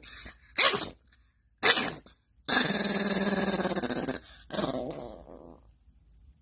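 Small dog growling in annoyance at being woken: two short growls, then a longer drawn-out one and a last one that trails off.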